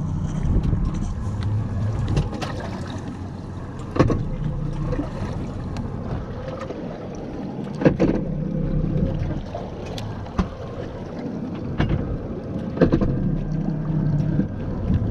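Noise aboard a fishing boat at sea: wind buffeting the microphone over a low rumble, broken by about four sharp knocks.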